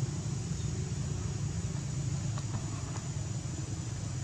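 Steady low rumble with an even hiss above it, unchanging in level throughout.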